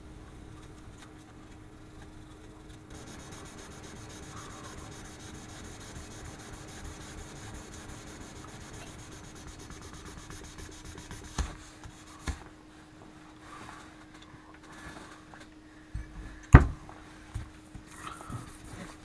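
Fine P2000 wet-or-dry sandpaper rubbed back and forth by hand over a polished steel axe head, a steady scratchy rubbing over a faint steady hum. The rubbing stops about eleven seconds in, and a few sharp knocks follow as the head and sanding block are handled on the bench, the loudest near the end.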